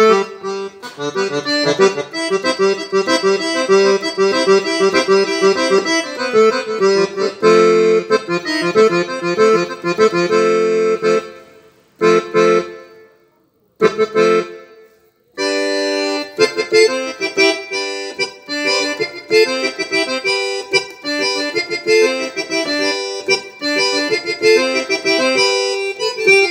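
Yamaha PSR-S670 keyboard playing a sampled accordion (sanfona) voice: a melody played by hand on the keys, with a couple of brief pauses about halfway through.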